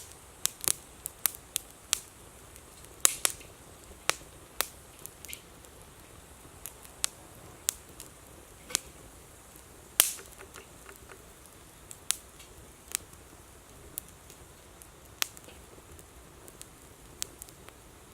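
Wood bonfire crackling: sharp, irregular pops and snaps over a faint steady hiss, the loudest pops about three seconds and ten seconds in.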